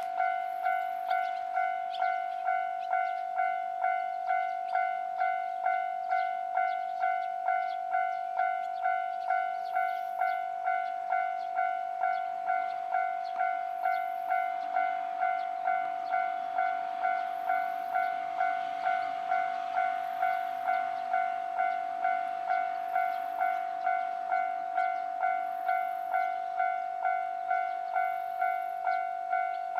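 Japanese railway level-crossing warning bell ringing, a steady electronic tone struck about twice a second without a break. A train runs over the crossing, its wheels clicking over the rails, and its rumble is loudest around twenty seconds in.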